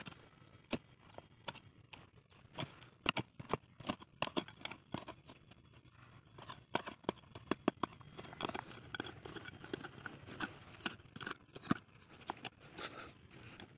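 A quick, irregular run of sharp clicks and knocks, densest in the first half and sparser later, over a faint high-pitched steady pulsing.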